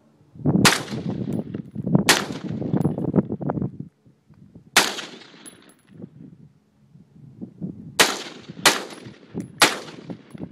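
AR-15 rifle fired as single shots, six in all: two about a second and a half apart, one on its own, then three in quick succession near the end. Each is a sharp crack with a short fading tail.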